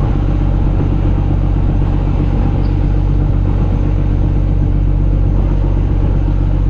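A fishing trawler's engine running steadily, a low, even drone.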